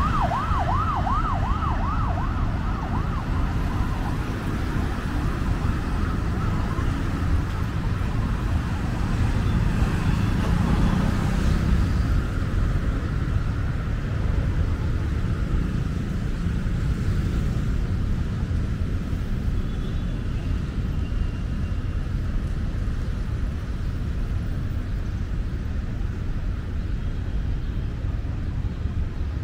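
An emergency-vehicle siren sweeping rapidly up and down, fading away about three seconds in, over steady city street traffic noise.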